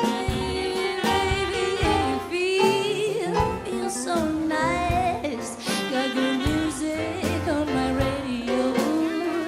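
Swing band playing a slow blues, with a bending melodic lead line over the rhythm section and no sung words.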